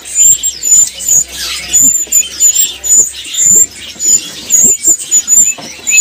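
Caged small songbirds chirping: short, very high, thin squeaky notes about twice a second over a busy chatter of other bird calls.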